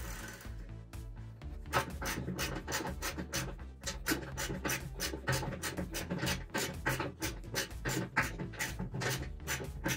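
Ratchet wrench clicking in quick runs as a steel socket turns a threaded fitting into a radiator connector, over background music with a steady beat.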